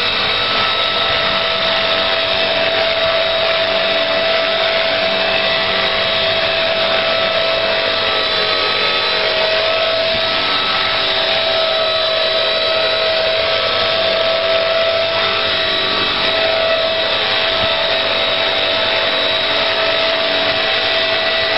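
Electric motor and rotor of a small RC Bell UH-1 Huey model helicopter whining steadily in flight, its pitch wavering slightly.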